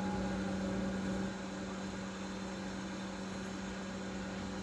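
A steady low hum over a faint even hiss, a little louder for about the first second and then holding level.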